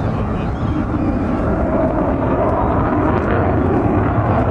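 Jet noise from an F-22 Raptor's twin Pratt & Whitney F119 turbofan engines as it flies a manoeuvring display pass overhead: a steady, deep rumble that grows a little louder after about a second and a half.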